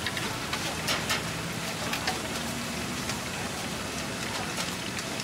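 Shrimp cakes deep-frying in a large wok of hot oil, a steady sizzle, with a few sharp clinks of the wire strainer against the wok.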